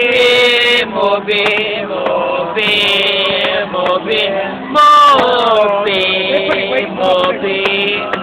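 Male voices singing and chanting loudly together, with loud shouts near the start and about five seconds in.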